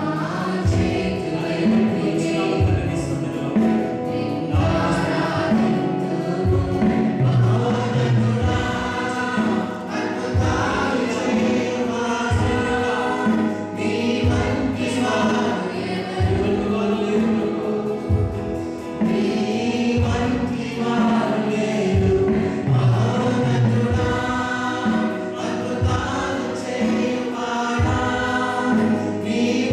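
A church worship song: a group of voices singing together over band accompaniment with a steady beat.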